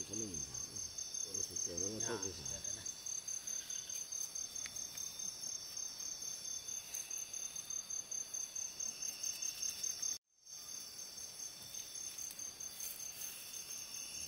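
Insect chorus: a steady, high-pitched, rapidly pulsing trill, with a voice speaking briefly in the first couple of seconds. The sound cuts out abruptly for a moment about ten seconds in.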